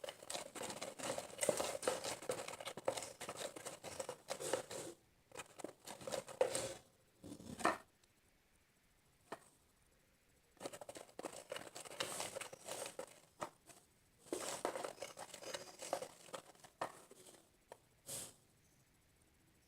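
Still-sticky homemade slime being mixed and worked as activator is added, giving crackly, tearing sounds in irregular bursts with a few short pauses.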